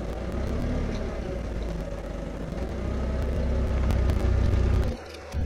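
Forklift engine running as it carries a 5,000 lb lathe across gravel, a steady low rumble that grows louder and then drops away suddenly about five seconds in.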